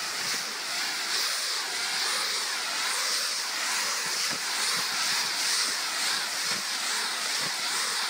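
Lawn sprinkler spraying water up against the underside of a wet trampoline mat: a steady hiss, with a few soft thuds of bare feet bouncing on the mat.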